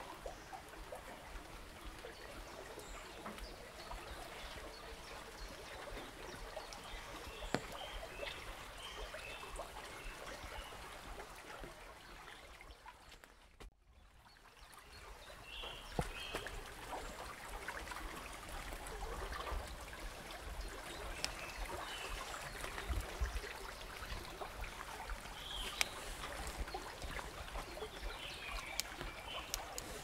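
Shallow forest stream trickling steadily. The water sound drops out briefly about halfway through, then swells back in.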